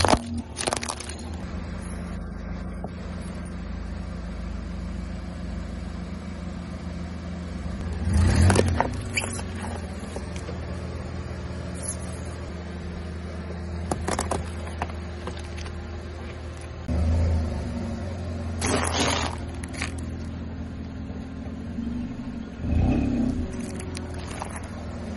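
Car engine running steadily at low speed as its tyre rolls over and crushes plastic toys, with several sharp cracks and crunches a few seconds apart.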